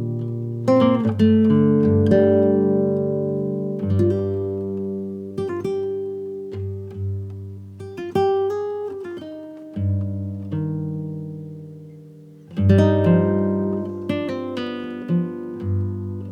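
Background music of acoustic guitar: plucked notes and chords that ring out and fade, with a new strum every second or two.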